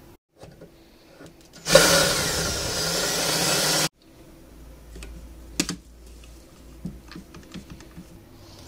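Cordless drill running for about two seconds, cut off abruptly. After it come scattered light clicks as one-handed quick-release bar clamps are ratcheted tight.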